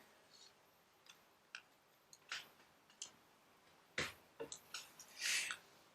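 Faint, scattered small clicks and taps from handling a laptop and its parts during a repair: a few single ticks in the first three seconds, then a busier run of clicks about four seconds in and a short rustle near the end.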